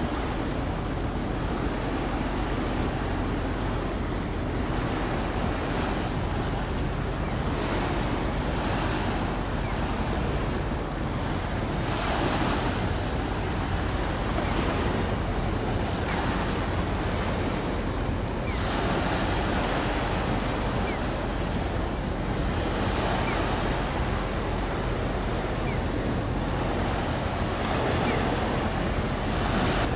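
Sea water washing and surging, swelling every few seconds, with wind buffeting the microphone and a steady low hum underneath.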